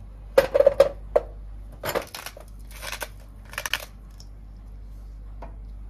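Raw potato chunks sliding off a wooden cutting board and dropping into a metal pot: a quick run of knocks in the first second, then a few more knocks and scrapes as the last pieces go in.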